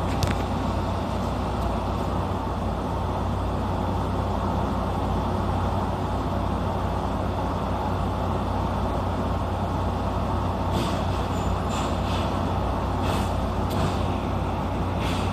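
A JR 115-series electric train standing at the platform, its onboard equipment giving a steady low hum, with several short hisses in the last few seconds.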